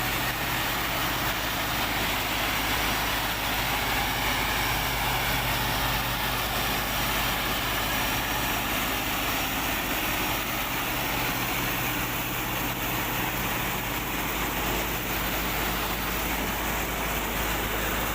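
Heavy farm machinery engine running steadily at a constant pitch, with a broad mechanical noise over it.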